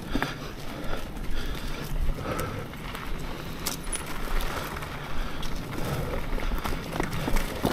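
Mountain bike being ridden over a dirt trail: steady tyre and ground noise with irregular rattles and clicks from the bike.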